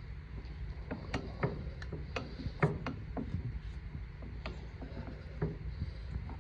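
Irregular light metallic clicks and taps, about a dozen spread over a few seconds, from hand tools and loose parts being worked on a John Deere 14T square baler's knotter.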